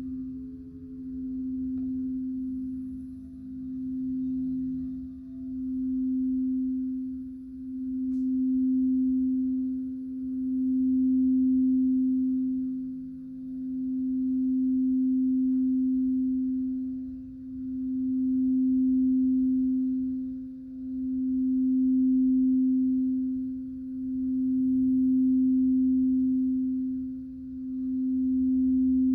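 Singing bowl sounding one steady low tone with fainter higher overtones. The tone swells and fades in an even pulse about every three seconds.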